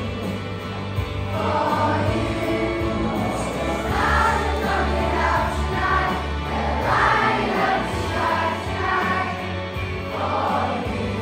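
A group of primary-school children singing a song together in unison, over steady instrumental backing.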